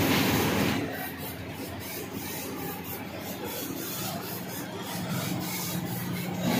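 CNC laser cutting machine cutting steel sheet: a steady hiss with a low hum, louder for about the first second.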